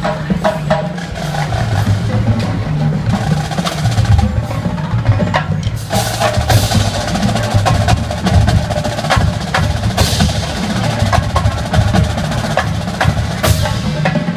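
Marching band playing: low brass holding a full sound under a busy drumline, with many sharp drum and woodblock-like strikes.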